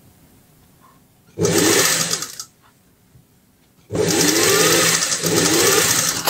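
Industrial sewing machine stitching a seam in two runs: a short burst of about a second, then a longer run of about two and a half seconds that stops abruptly near the end.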